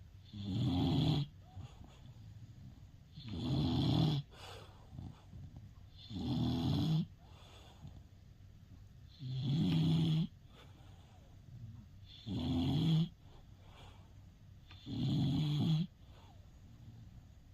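English bulldog snoring: six rough snores, each about a second long, coming regularly about every three seconds with quiet breathing between.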